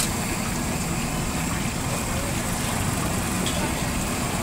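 Chapli kababs frying in a large flat pan of oil, a steady hiss over a continuous low rumble.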